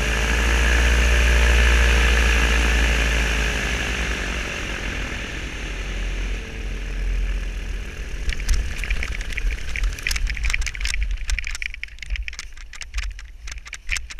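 Paramotor engine and propeller running with a rush of wind, the pitch wavering and the sound fading away over the first five seconds or so. From about eight seconds in, a fast run of crunches as the pilot's boots touch down and run on the packed snow.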